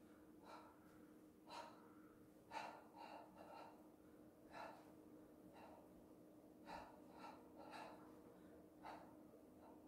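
A person's short, sharp breaths, about a dozen irregular puffs in and out through the nose and mouth, over a faint steady hum.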